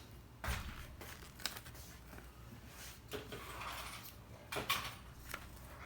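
Light handling noises: a few scattered clicks and rustles, with a louder cluster of them near the end.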